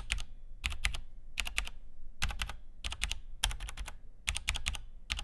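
Typing on a Cherry G80 5000 mechanical keyboard with first-generation Cherry MX Brown tactile switches, keys pressed in quick clusters of two or three strokes, a little under one cluster a second. The sound is called very "Hi-Fi".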